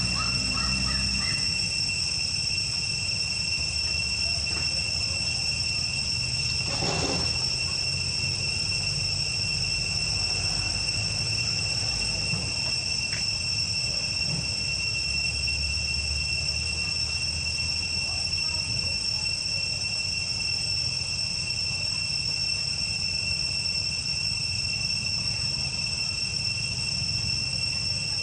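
A steady, high-pitched insect drone holding one pitch throughout, over a low rumble. A brief rustle about seven seconds in.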